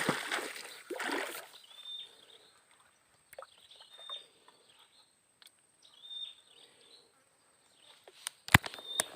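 A bird repeating a short, high call about every two seconds. A rushing noise fills the first second and a half, and a few sharp knocks come near the end, the loudest one about a second before the end.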